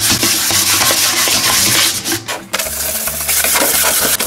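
A 180-grit sandpaper sheet rubbed by hand over wood veneer, giving a continuous scratchy hiss that stops briefly about two seconds in and then resumes. It is the light scuff-sanding that roughs up the surface so the paint will stick.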